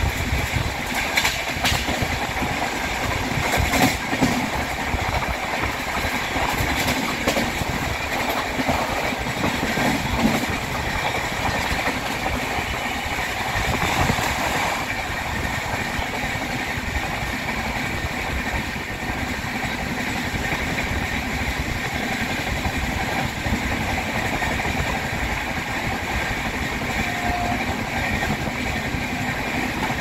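Train running at about 125 km/h, heard from on board: a steady rush and rumble of wheels on rails with clickety-clack, and a few sharper clicks early on and about halfway through.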